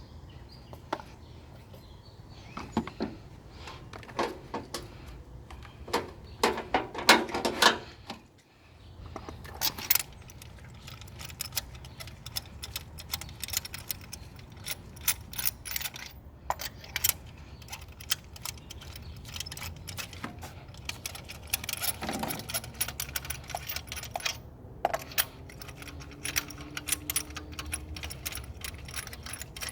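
Metal hand tools clicking and clinking, with ratchet-like clatter, over a steady low hum; the clatter is loudest a few seconds before a brief break in the sound.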